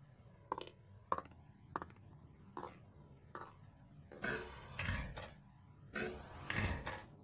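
Footsteps on a hard floor: five evenly spaced steps. These are followed by two longer, louder noises about four and six seconds in.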